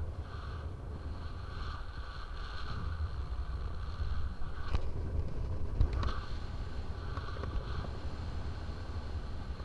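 Airflow buffeting the microphone of a paraglider in flight: a steady low rumble, with a couple of short knocks about five and six seconds in.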